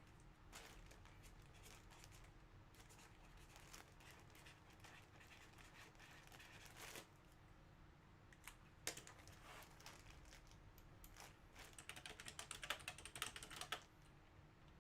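Typing on a computer keyboard: scattered faint keystrokes, then a quick run of typing a little before the end.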